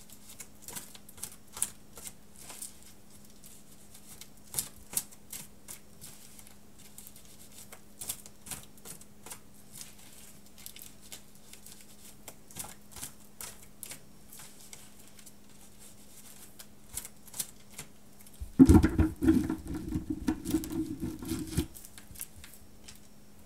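A deck of oracle cards being shuffled by hand: scattered soft clicks and taps of cards against each other, then a louder, denser run of shuffling lasting about three seconds near the end. A faint steady hum sits underneath.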